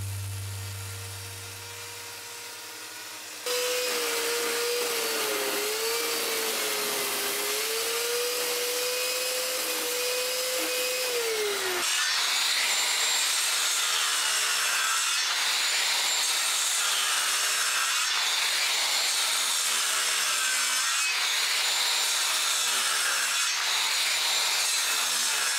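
Handheld electric circular saw cutting a row of closely spaced kerfs across a thick timber for a wooden rudder. It starts suddenly a few seconds in, and its whine dips and recovers with each pass through the wood.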